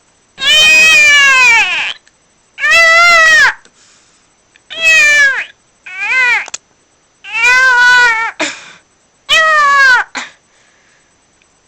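A person imitating a cat with loud meows: six drawn-out calls, each rising and then falling in pitch.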